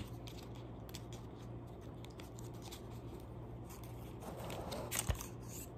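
Small cardboard cosmetics box being handled and opened to get a lip tint out: faint rubbing and scraping of paperboard with a few light ticks, then a busier stretch of scraping and a sharp click about five seconds in.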